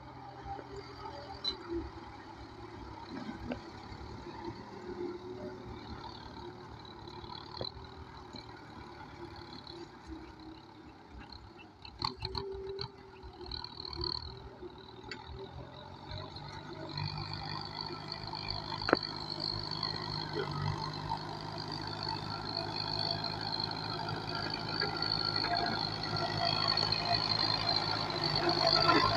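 Kubota M9540 tractor's diesel engine running while ploughing a rice field, a steady hum that grows steadily louder over the second half. A few short clicks and knocks come about twelve seconds in.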